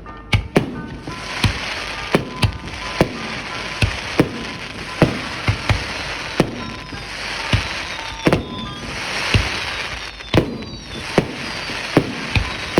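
Fireworks exploding in quick succession: well over a dozen sharp bangs, about one or two a second, each with an echoing tail, over a steady crackling hiss from glittering bursts.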